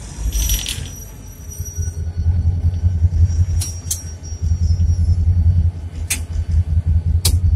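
Cab of an EMD SD24 diesel locomotive under way: a loud, uneven low rumble from the engine and running gear on rough track, with wind buffeting the microphone. A brief hiss comes about half a second in, and a few sharp clicks or rattles sound later on.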